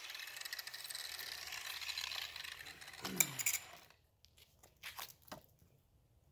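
Power tool used to sharpen a lawn mower blade running down after grinding. A brief falling whine comes about three seconds in, then a few light metallic clinks as the steel blade is handled.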